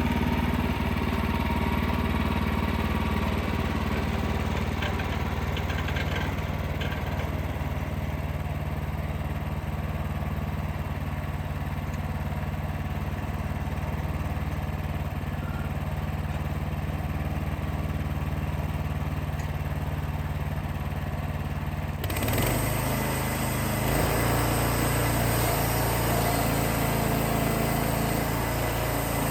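Wood-Mizer LX55 portable sawmill's 14 hp engine running steadily. About two thirds of the way through the sound changes abruptly to a brighter, hissier engine sound with a different pitch.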